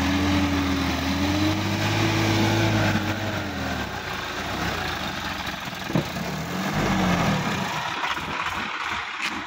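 Sonalika DI-50 RX tractor's diesel engine revving hard under load as the tractor climbs out of a muddy field, its pitch rising and holding, then dropping about four seconds in. A second, shorter rev comes near seven seconds, with one sharp knock just before it.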